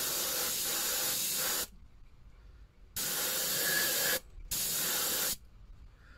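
Airbrush spraying paint: three hisses of compressed air, a longer one of about a second and a half, then two shorter ones, each cutting off sharply.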